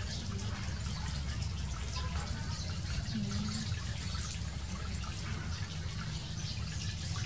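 Water running and splashing into a shallow frog-farm tank, with a steady low rumble beneath it and faint small splashes throughout.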